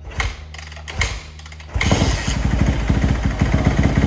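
Yamaha YZ250F four-stroke single-cylinder dirt bike engine starting for the first time after a rebuild. Two short thumps come first, then about two seconds in the engine catches and runs with a fast, even firing beat.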